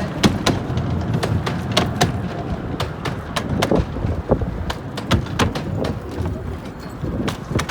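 A miniature railway train running, with many sharp, irregular clicks and knocks over a low rumble. Wind buffets the microphone.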